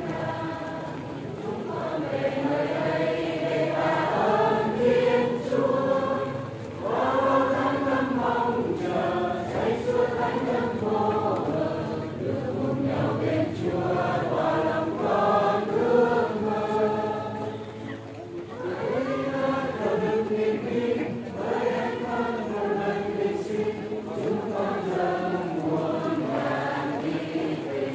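Church choir singing a hymn in long sung phrases, with brief pauses between phrases about seven and eighteen seconds in.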